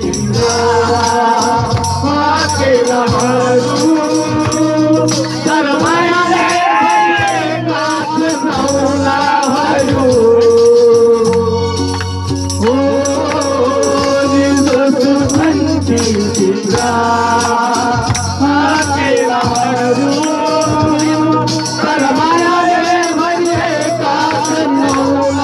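A group singing a Nepali Deusi song over a steady percussive beat.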